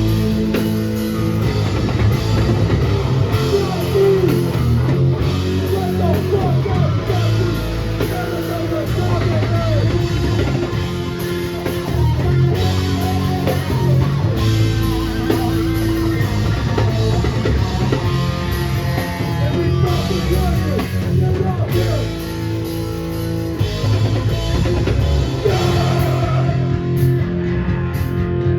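A hardcore/metalcore band playing live: heavily distorted guitars, bass and pounding drums, with shouted vocals at times.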